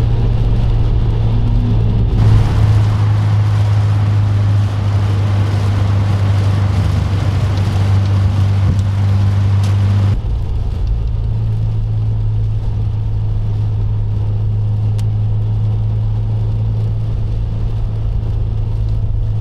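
2021 Subaru WRX driving at a steady pace, its engine drone and road noise heard from inside the car. A broad hiss rises about two seconds in, holds for about eight seconds and then cuts off abruptly.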